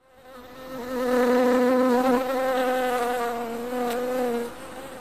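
A bee buzzing: one steady, slightly wavering hum that swells in over the first second and drops away after about four and a half seconds.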